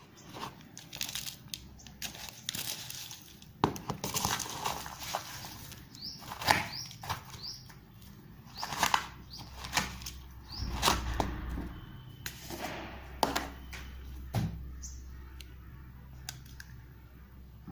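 Close-up eating sounds of spicy Wai Wai instant noodles: irregular wet slurps, chewing and lip smacks, with a few short rising squeaks around six to seven seconds in.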